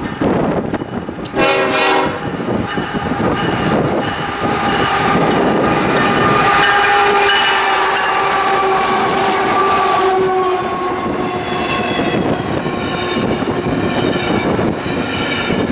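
CSX freight locomotive's air horn: a short blast about a second in, then a long blast as the engine approaches and passes close by, its chord dropping in pitch as it goes by. Then the train's cars rumble and clatter past on the rails.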